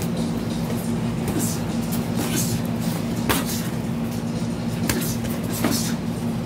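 Sparring in a boxing ring: a handful of irregular sharp hits and scuffs from gloved punches and footwork on the canvas, over a steady low machine hum.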